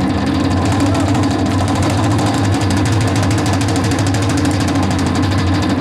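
Korean traditional percussion ensemble playing a loud, very fast, unbroken roll.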